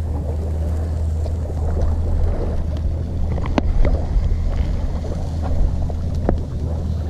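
Steady low rumble of wind buffeting the microphone, with a few sharp cracks from the wood fire under the grill, the clearest about halfway through and again near the end.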